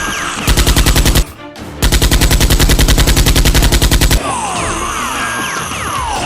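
Two bursts of rapid machine-gun fire, a short one of under a second and then a longer one of about two and a half seconds, at roughly a dozen shots a second, over background music.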